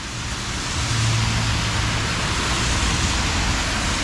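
Heavy rain falling steadily in a downpour, mixed with the hiss of cars driving past on a wet road; a low engine hum from a passing vehicle stands out about a second in.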